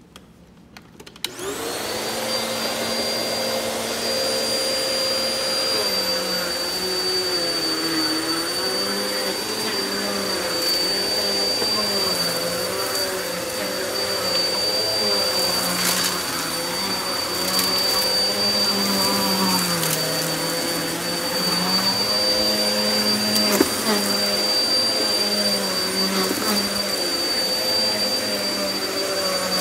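Upright commercial vacuum cleaner switched on about a second in, its motor spinning up to a steady high whine, the lower hum wavering in pitch as it is pushed back and forth over an entry mat. Scattered sharp crackles and clicks as grit and debris on the mat are sucked up, the loudest about three quarters of the way through.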